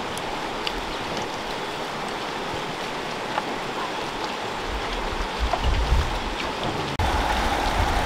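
River water flowing, a steady rushing with a few faint ticks. About seven seconds in it cuts to a louder, lower rumble.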